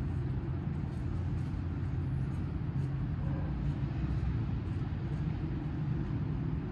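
Long-haired domestic cat purring, a steady low rumble, while a hand strokes its head.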